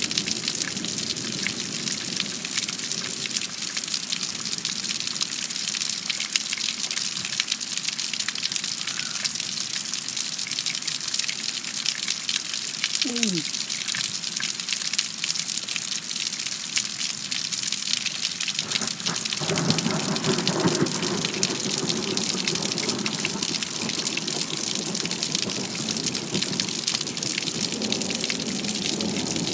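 Heavy thunderstorm rain falling steadily, with water gushing. A lower rushing sound grows stronger about two-thirds of the way through.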